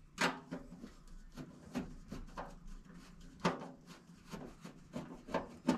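Scattered light clicks and taps of a magnetic screwdriver and screws against a stainless steel range hood panel as the panel's screws are taken out. The sharpest taps come about a quarter second in, about three and a half seconds in, and near the end.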